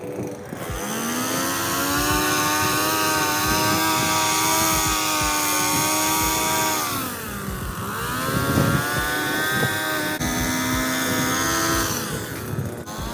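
Small high-revving engine of handheld lawn equipment run at full throttle, easing off about seven seconds in, then throttled up again and released near the end.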